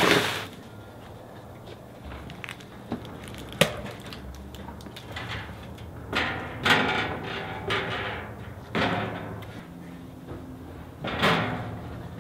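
Bumps, scrapes and rustles as a metal fire pit cabinet and its cardboard box are handled and set down, with a sharp knock about three and a half seconds in.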